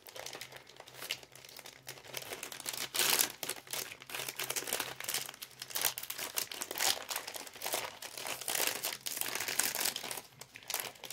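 Crinkly plastic snack bag of banana chips being worked at to open it, rustling and crackling in irregular spells throughout, over a faint steady low hum. The packaging is fiddly to get open.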